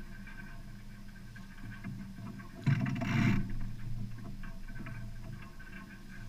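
Water washing along the hull of a 1972 Dufour Arpege sailboat under sail, over a steady low hum. A little under 3 seconds in comes one short, louder splash, a wave slapping the hull.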